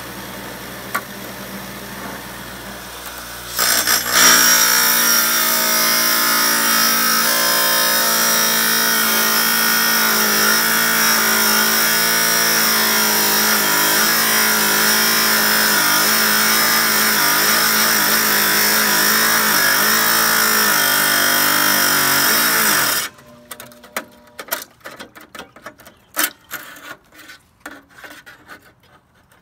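A Chicago Electric wet tile saw runs free, then from about 4 s in its blade grinds through a small green rock held by hand, the motor note wavering under the load. The grinding cuts off abruptly near 23 s, leaving scattered small clicks and taps.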